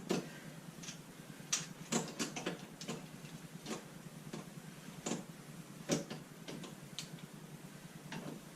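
Irregular small clicks and light knocks of metal hardware being handled: bolts, nuts and a hinge being set against a plastic storage lid, at uneven intervals with no steady rhythm.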